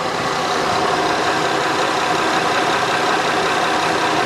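2008 Honda Odyssey's V6 engine idling steadily, heard from the open engine bay.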